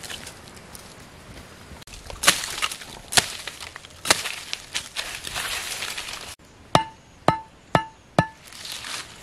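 Machete chopping a small sapling stem: scattered blows, then four sharp strikes about half a second apart near the end, each with a brief ring.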